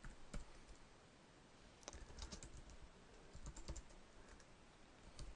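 Faint computer keyboard keystrokes, typed in short irregular runs with pauses between.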